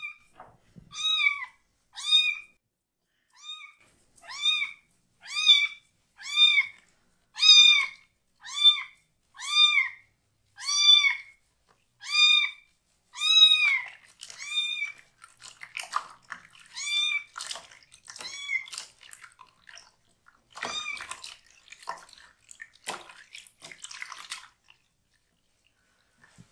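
A young kitten meowing loudly and insistently, about one call a second, as it protests having its bottom washed. After about fifteen seconds the calls give way to water splashing and sloshing as its lathered fur is rinsed in the basin.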